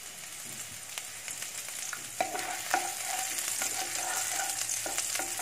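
Chopped garlic, ginger and green chilli sizzling in a little oil in a pan. From about two seconds in, a spatula stirs them with repeated scraping strokes against the pan.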